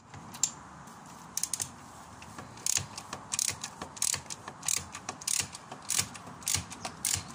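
Socket ratchet wrench clicking as it is worked back and forth undoing a bolt: a few stray clicks, then from about a second and a half in a steady run of strokes, a burst of pawl clicks every half-second or so.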